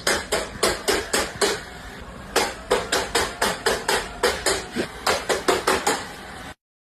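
A rapid run of sharp knocks, about four or five a second, with a short pause about two seconds in, then stopping abruptly just before the end.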